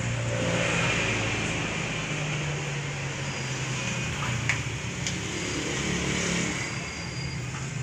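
Road traffic passing on a street: the running of car and motorcycle engines swells and fades as vehicles go by, with one sharp click about four and a half seconds in.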